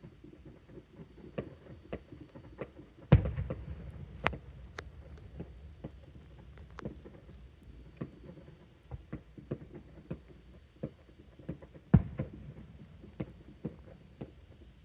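Fireworks going off at a distance: a run of irregular sharp pops and crackles, with two much louder booms, one about three seconds in and one near twelve seconds, each followed by a low rumble.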